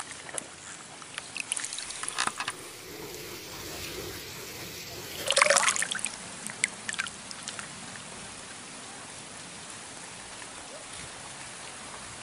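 Water splashing and trickling as an angler moves and handles a fish while standing in shallow river water: small splashes in the first couple of seconds and a louder splash about five and a half seconds in, then a steady hiss.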